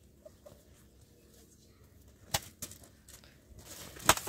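Quiet outdoor background with a few faint short chirps, then two sharp knocks about halfway through and a louder knock near the end as a rustling noise builds up.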